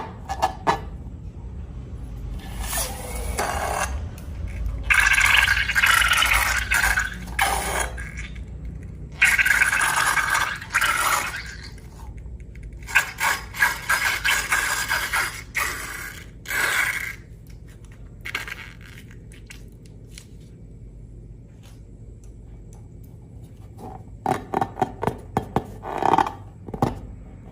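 Slime and balloons handled by hand: repeated bursts of scraping and rubbing, each a second to a few seconds long, with a quick run of clicks near the end.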